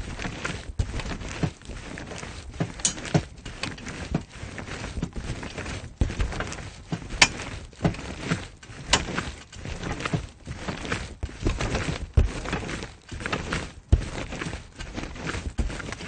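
Trampoline being jumped on: irregular thumps of the mat, several a second, with a few sharper, louder hits among them.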